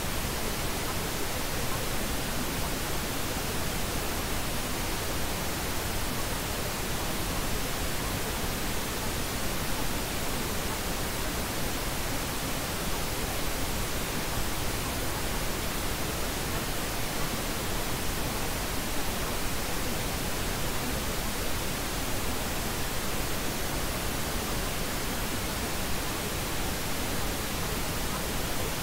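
Steady pink noise, an even hiss with no changes. It is the masking track of a subliminal recording, with spoken affirmations buried beneath it and not heard as words.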